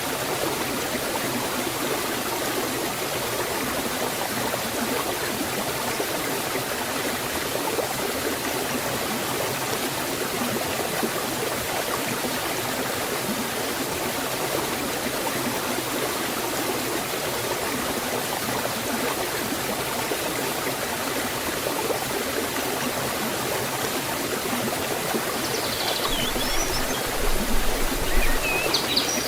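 Forest waterfall and stream flowing, a steady even rush of water. Near the end a few faint high bird chirps come in over it, with a brief low swell in the level.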